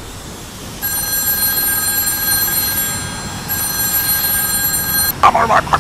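Telephone ringing: two long, high electronic rings with a short break between them. A loud, rapidly pulsing sound cuts in near the end.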